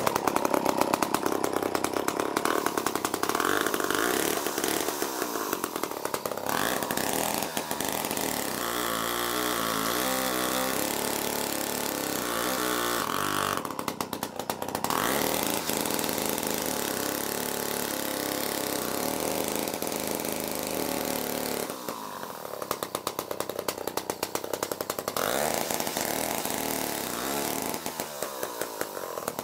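Two-stroke chainsaw running hard at high revs, its engine pitch shifting up and down. It drops back briefly twice, about halfway through and again about three-quarters of the way in.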